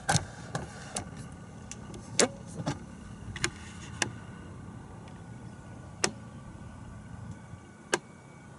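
Scattered clicks and knocks of a camera being handled and repositioned, about nine taps in all, the loudest about two seconds in and near the end, over a steady low background rumble.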